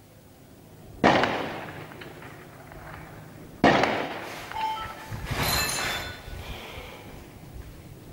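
Distant gunfire: two loud, sharp shots about two and a half seconds apart, each rolling away in a long echo, then a softer report around five seconds in.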